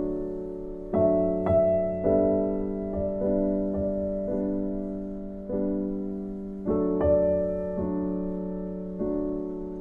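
Background piano music: soft chords struck about once a second, each ringing out and fading.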